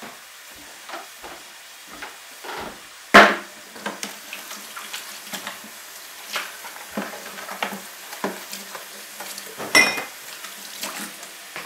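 Kitchen utensils and cookware being handled on a counter: scattered clicks and knocks, one loud knock about three seconds in, and a sharp metallic clink that rings briefly near the end.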